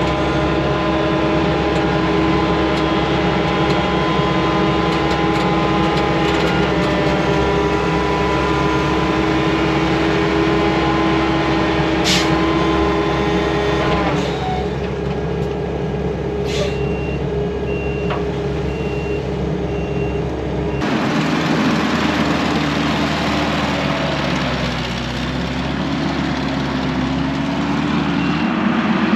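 Heavy earthmoving equipment engines running while clay is pushed in and packed, the engine note dropping about halfway. A backup alarm beeps steadily twice, and after an abrupt change a machine engine's pitch dips and rises as it works.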